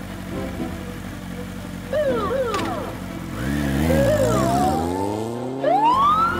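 Cartoon vehicle sound effects: an engine hums steadily and then revs up with a rising pitch, with brief high squeals about two seconds in. A police siren wail starts near the end, rising and then falling.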